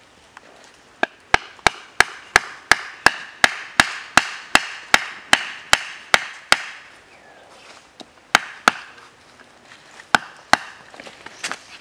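A knife blade chopping into wood in quick, even strokes, about three a second for some five seconds. After a pause come two pairs of strikes and then a single one.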